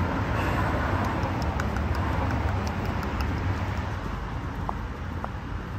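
Outdoor city street noise: a steady rumble of traffic, with a few faint clicks in the second half.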